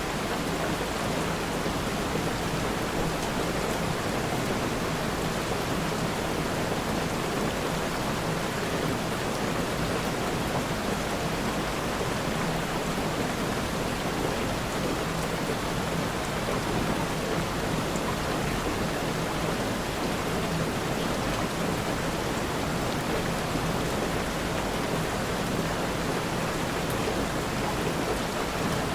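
Steady rain falling, an even hiss of many drops with no distinct events.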